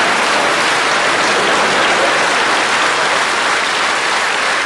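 Studio audience applauding and laughing, a steady, dense clapping that eases slightly near the end.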